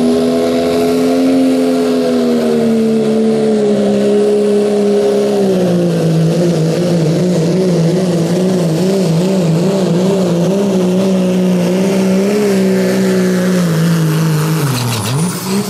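Diesel pickup engine, a second-generation Dodge Ram's Cummins, running at full throttle under heavy sled-pulling load. The revs hold high and steady, drop a step about five seconds in, then waver up and down for several seconds, and fall sharply near the end.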